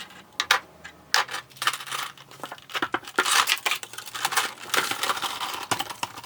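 Small plastic figure parts and packaging being handled: a quick run of light clicks and taps mixed with crinkling rustles.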